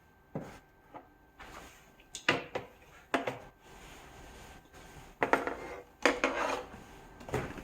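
Scattered knocks and clatter of hard plastic and metal parts being handled on a work surface, as a 15-inch HMI touch-panel display module and its fixing screws are moved into place. About eight separate knocks, a few with a short rattle.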